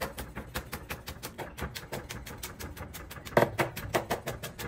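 Chef's knife rapidly slicing long green finger chilies into rings on a wooden cutting board: a quick, even run of sharp taps, about six cuts a second.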